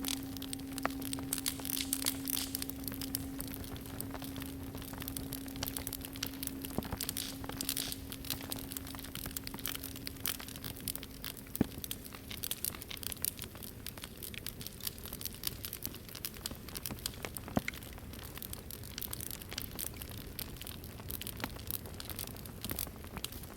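Wood fire crackling with scattered sharp pops. The last of a singing bowl's ring, one low steady tone, fades out about halfway through.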